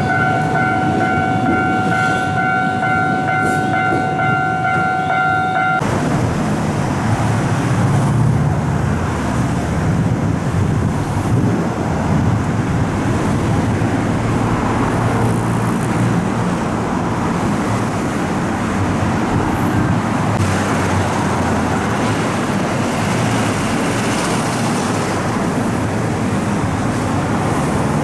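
A railway level-crossing alarm sounds a steady electronic tone that cuts off suddenly about six seconds in. Under it and after it, a passing train and road traffic give a steady rumble.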